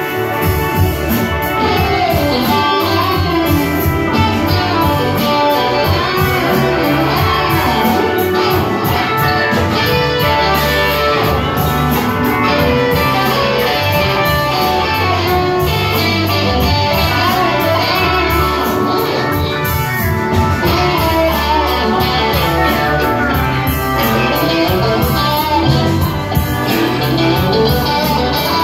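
Live country band music led by a sunburst Stratocaster-style electric guitar, its notes bending up and down in pitch.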